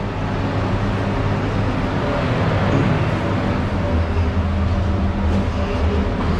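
Spray booth extraction fan running: a steady rush of air with a low hum underneath.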